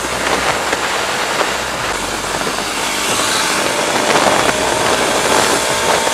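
Loud wind rush over the microphone of a camera mounted on a moving motorcycle at highway speed, with the motorcycle's engine running steadily underneath; the rush grows gradually louder.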